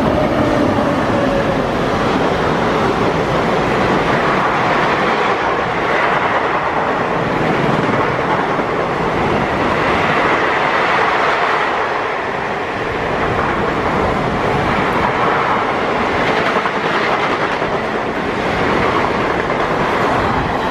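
Long passenger express train passing close at speed, a steady loud rush and rattle of coach wheels on the rails. The WAP-7 electric locomotive's horn trails off in the first second.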